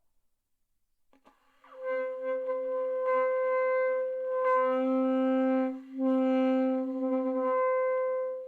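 A beginner playing one long, steady saxophone note. It starts after about two seconds of quiet, breaks off briefly near six seconds in, is taken up again and stops near the end.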